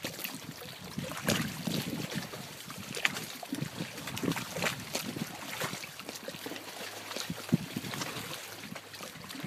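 Small waves lapping and splashing irregularly at the shore.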